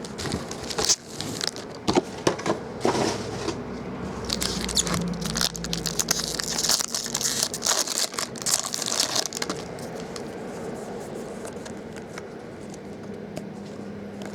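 Trading-card pack wrappers torn open and crinkled, with sharp knocks of packs and cards set down on a noisy table in the first few seconds. A stretch of rustling tearing follows, then it quietens.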